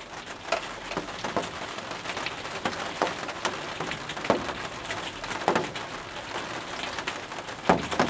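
Rain pattering on a greenhouse's polycarbonate roof and walls: a steady hiss dotted with irregular drop ticks.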